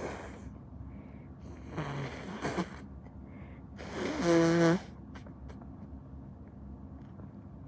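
A person blowing a congested, snotty nose, three blows in a row. The last and loudest, about four seconds in, is a honking blow with a steady pitched tone. These are sick, mucus-filled blows.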